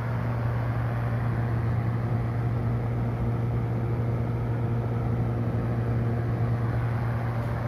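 Maspion MV-300 NEX wall-mounted exhaust fan running steadily in intake mode: a constant low motor hum under an even rush of air.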